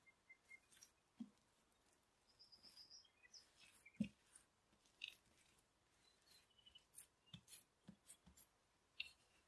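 Faint soft thuds and pats of hands handling and shaping a ball of yeast dough on a countertop, a handful of them, the loudest about four seconds in, with faint light ticks in between.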